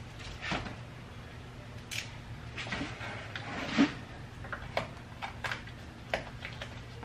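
Scattered clicks, taps and rustles from hands handling materials during the install, the loudest about four seconds in, over a steady low hum.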